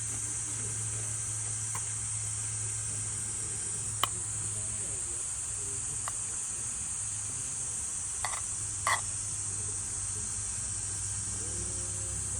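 Insects chirring steadily over a low, even hum, with a handful of sharp clicks: one about four seconds in, one about six seconds in, and a close pair near nine seconds.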